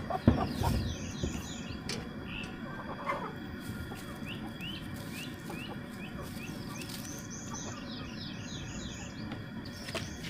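Bird calls: several runs of short, high chirps repeated in quick succession over a steady low background, with a few sharp knocks near the start.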